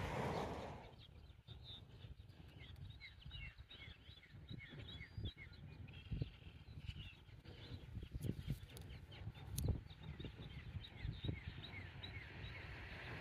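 Small songbirds chirping: quick, short, high notes, several a second, from more than one bird. Under them is a low rumble of wind on the microphone, loud at first and dying down about a second in.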